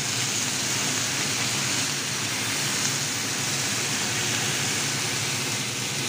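Bone-in beef steak sizzling steadily in a ridged grill pan, a constant hiss of fat and juices frying.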